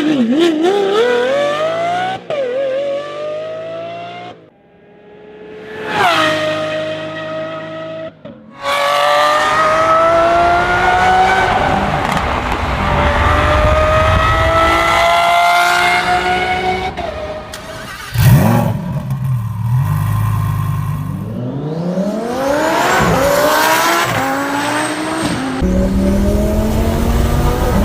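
Lamborghini supercar engine accelerating hard through the gears, its pitch climbing and dropping at each shift, over several separate passes. It fades away and swells back about four to six seconds in, and there is a sudden loud bang at about eighteen seconds.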